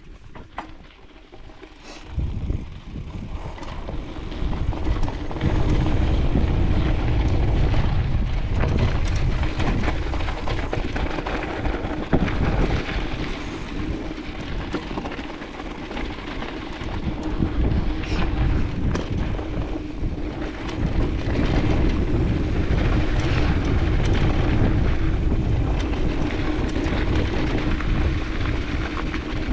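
Mountain bike riding down a dirt trail: wind buffeting the chest-mounted GoPro over the rumble of the tyres, with scattered knocks and rattles from the bike over bumps. It is quieter at first, builds over the first few seconds as the bike picks up speed, then stays loud.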